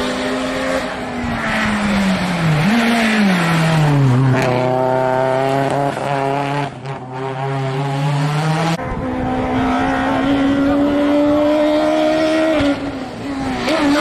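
Hillclimb race car engines running hard. The first engine's pitch falls over about four seconds, with a brief upward blip about two and a half seconds in, as it slows and changes down, then holds steady before cutting off abruptly about nine seconds in; a second engine then takes over, its pitch climbing slowly as it accelerates.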